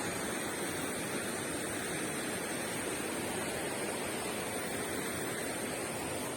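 Flowing river water: a steady, even rush with no breaks.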